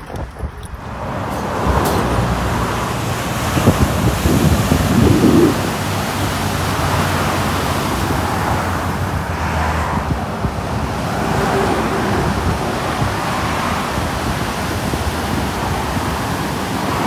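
Ocean surf breaking and washing over shoreline rocks, a steady rush that swells and eases every few seconds, with wind rumbling on the microphone.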